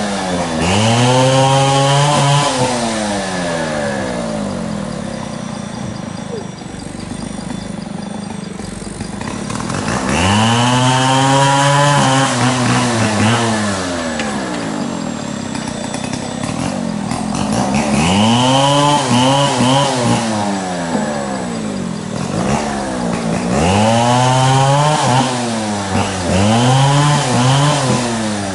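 Engine revving up and dropping back in repeated swells a few seconds apart, each lasting about two to three seconds, with a quieter steadier stretch in between.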